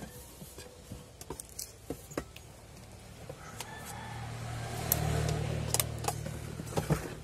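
Metal spoons clinking and scraping against plates and the rice cooker's inner pot as rice and food are served. Through the second half a low engine rumble swells up and then eases, like a vehicle going past.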